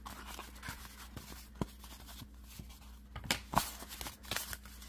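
Crumpled paper rustling as it is handled and dabbed with a round ink blending brush, with a few sharp crackles scattered through.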